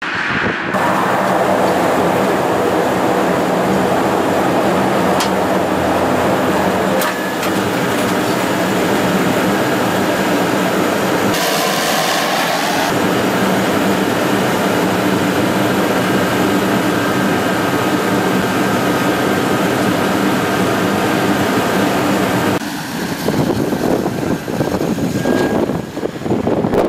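Air Tractor 802's single turboprop engine and propeller running steadily as the plane taxis, a constant tone with a fixed pitch. Near the end the sound turns gusty and uneven.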